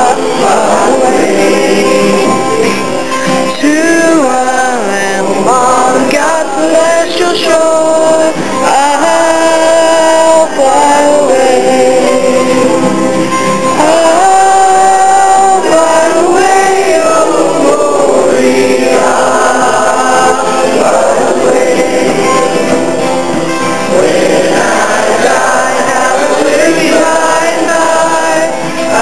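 Voices singing a gospel song together, loud and steady throughout.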